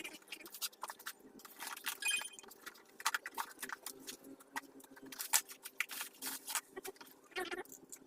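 Irregular clicks, taps and rustles of a fishing-reel box and its packaging being handled and opened, with a brief high squeak about two seconds in.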